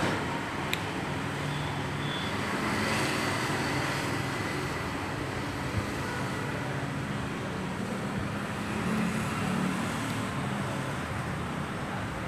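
Steady background rumble and hiss with a low hum and one faint click about a second in.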